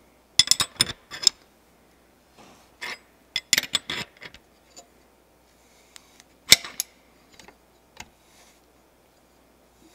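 Headset press drawing an eccentric headset cup into a bike frame's head tube, making irregular sharp metallic clicks and clinks in short clusters, with quiet gaps between them.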